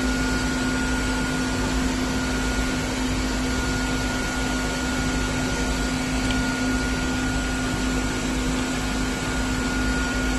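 Steady machine hum and hiss with a constant low drone and a fainter, higher steady tone, as from a fan or motor running nearby.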